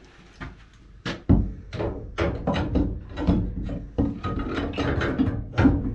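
Metal anode rod being knocked and worked at the top of a water heater tank: a string of sharp metallic knocks, some with a brief ring, about two a second, starting about a second in.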